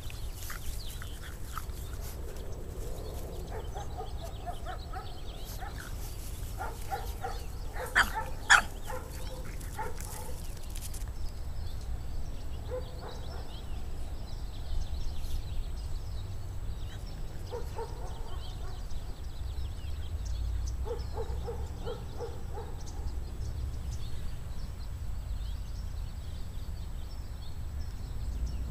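Dog barking: two loud sharp barks about eight seconds in, with fainter short yips scattered through, over a steady low wind rumble.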